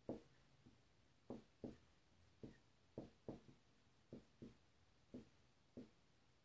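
Dry-erase marker writing on a whiteboard: about ten short, faint strokes and taps as an equation is written out and boxed.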